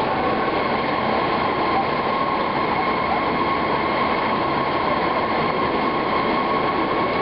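Steady drone of rubber-processing factory machinery, an even mechanical noise with a constant high whine running through it.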